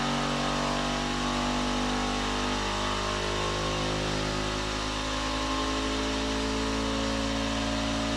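Flashforge Adventurer 5M Pro 3D printer running its vibration compensation shake test on the Y axis, its motors vibrating the motion system. The result is a loud, steady buzz of several tones whose pitches drift slowly.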